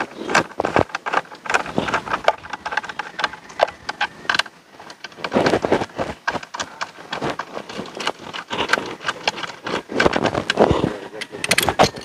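Irregular metallic clicks, knocks and clatter of hand tools working bolts on a scooter's rear swing arm, with a couple of longer rattling spells.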